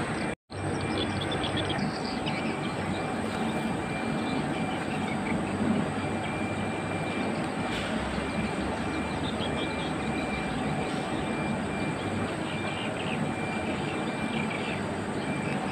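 Steady rushing outdoor noise with no clear single source, broken by a brief dropout about half a second in.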